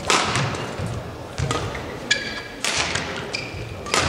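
Four sharp knocks, about a second and a quarter apart, and short squeaks of court shoes on a badminton court mat, with the echo of a large sports hall.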